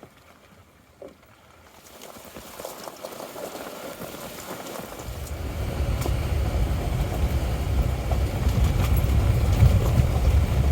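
Jeep Wrangler driving on a wet dirt road in the rain, heard as tyre and road rumble with hiss above it. The rumble builds over the first few seconds and stays loud from about halfway in.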